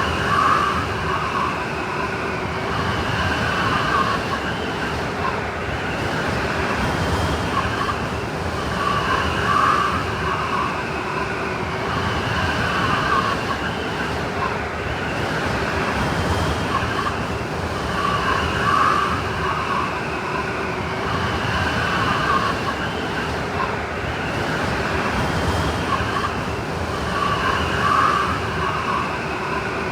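Blizzard wind sound effect: steady rushing wind with howling gusts that rise and fall in pitch. The same stretch repeats about every nine seconds, a looped recording.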